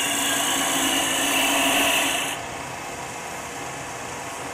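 A gouge cutting spinning maple on a wood lathe: a steady hiss of the shear cut that stops suddenly about two seconds in, leaving the quieter hum of the lathe running.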